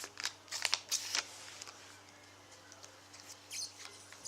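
Trading card packet wrapper being torn open and crinkled, a rapid run of crackly rustles in the first second or so, then softer rustling as the cards are handled.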